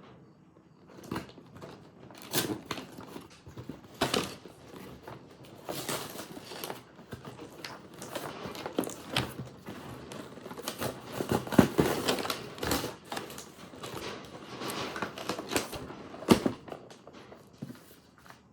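Packaging being handled and opened: irregular rustling, crinkling and crackling with sharp clicks and knocks, busiest in the middle and with a louder knock near the end.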